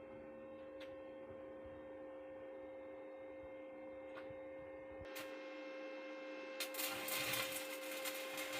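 Electric grinder running with a steady hum, its disc biting into the steel edges of welded connectors about two-thirds of the way in with a rough, rasping grinding noise. A few light clicks come before that.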